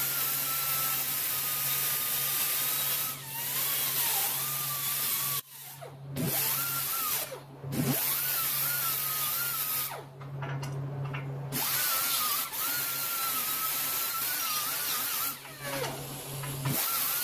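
Power grinder grinding rust off a steel exhaust pipe, its high whine wavering under load. It stops and winds down several times, then spins up again.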